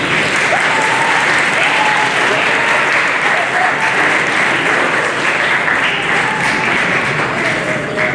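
Audience applause that breaks out suddenly and keeps up steadily, with a few faint voices over it.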